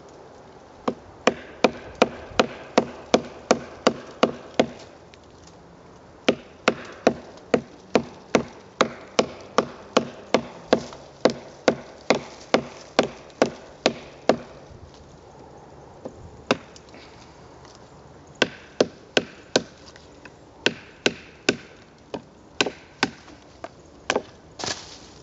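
A wooden stick used as a baton knocking on the spine of a Mora Bushcraft carbon-steel knife, driving the blade down through a thick stick. The sharp knocks come about two a second in several runs with short pauses between.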